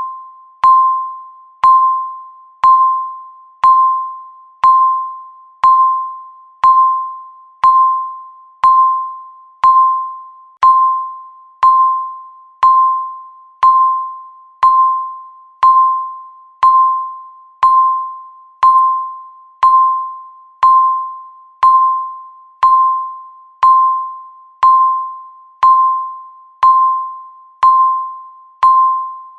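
Countdown timer beeping once a second, each beep marking one second left: a single clear electronic tone that starts sharply and fades away before the next.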